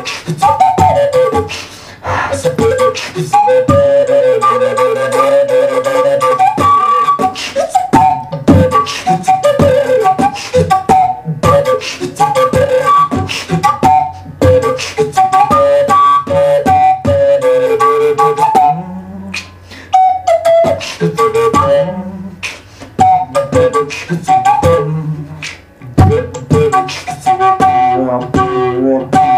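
Native American wooden flute playing a sliding melody over a beatboxed hip-hop rhythm: sharp percussive mouth clicks and pops between and under the notes, with a few low hummed tones in the second half.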